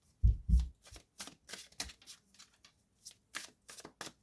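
Tarot cards being handled: a quick string of short papery flicks and snaps, with two soft thumps in the first second.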